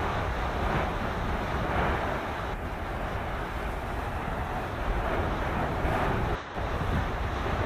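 Steady rushing rumble of a phreatic steam-blast eruption, lava boiling off ground water and throwing up ash, mixed with wind buffeting the microphone. It drops out for a moment about six and a half seconds in.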